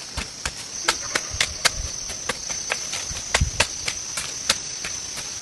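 Insects, likely crickets, trilling in a steady high drone, with many sharp, irregular knocks over it, several a second.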